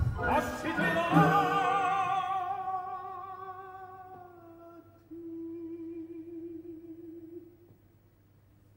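Opera singing: a voice with vibrato sings a phrase and holds a long note that slowly fades. About five seconds in, a quieter steady note comes in and stops a couple of seconds later, leaving near quiet at the end.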